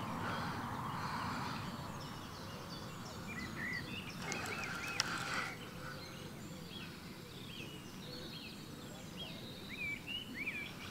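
Small birds singing and chirping over a low outdoor background hiss, with a short burst of noise and a click about four to five seconds in.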